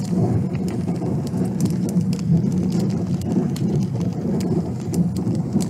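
Car driving on a gravel road, heard from inside the cabin: a steady low tyre and road rumble with scattered sharp ticks throughout.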